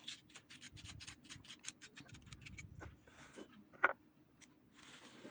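A toothpick being pushed through the layers of a red onion: a quick run of small crisp clicks and scratches, then a few softer scrapes and one louder click about four seconds in.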